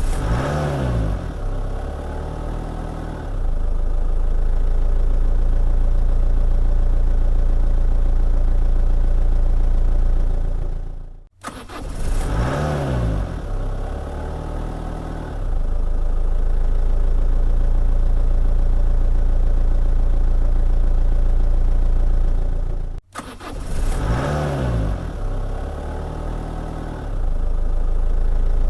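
Car engine starting: it catches with a quick rise and fall in pitch and settles to idle, then about three seconds later runs louder and steady. The same start-up sequence plays three times, each one cut off abruptly.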